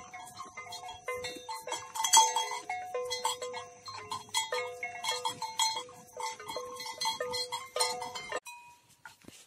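Neck bells on a small herd of mithun clanking irregularly as the animals walk, a jumble of overlapping ringing notes at a few different pitches. The clanking cuts off abruptly near the end.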